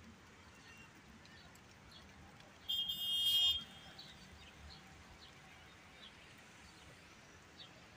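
A single loud, high-pitched vehicle horn toot lasting about a second, a few seconds in, over faint scattered bird chirps and low outdoor background noise.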